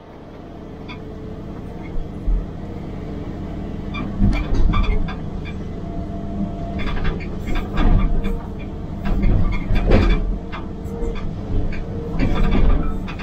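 Excavator engine running, heard from inside the cab and building over the first few seconds. From about four seconds in, the hydraulic breaker on the arm hammers concrete in irregular bursts of knocks as it works into the rubble.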